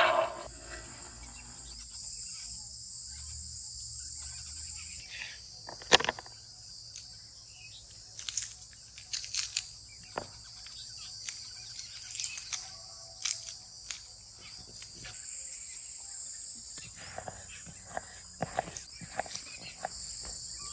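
A knife cutting a white onion on a wooden board in irregular sharp taps, starting about five seconds in, over a steady high buzz of insects.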